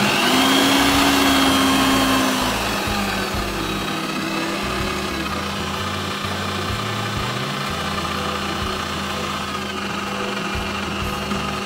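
Bosch PBD 40 bench drill press's motor running with no load, spindle turning at around 750 to 1000 rpm while the speed dial is adjusted. It is loudest in the first couple of seconds after start-up, then runs steadily a little quieter.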